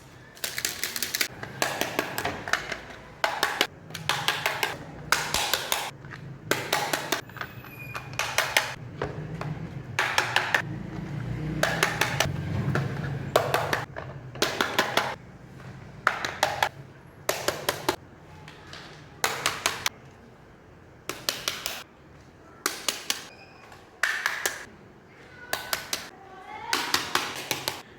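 Small plastic pieces of a miniature toy kitchen set being handled and set down: quick bursts of sharp clicks and taps, a few at a time, every second or two.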